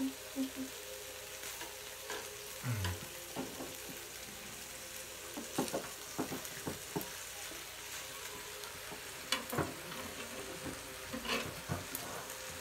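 Beef and other meat sizzling in a grill pan over a portable gas burner, a steady frying hiss, with scattered clicks and knocks of metal tongs and chopsticks against the pan as raw slices are laid on.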